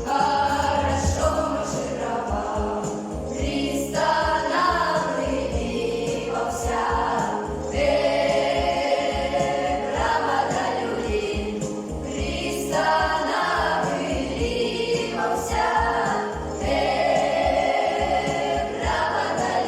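Children's vocal ensemble singing a song together in chorus, in phrases of a few seconds each with short breaks between them.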